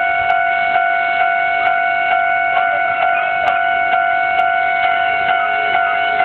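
Japanese railway level-crossing warning bell at a Hankai Tramway crossing, ringing its repeating electronic "kan-kan" tone at about two strikes a second. The crossing is signalling that a tram is approaching.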